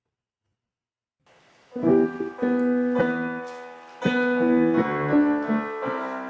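Near silence, then a piano starts about two seconds in, playing a song's introduction in struck chords.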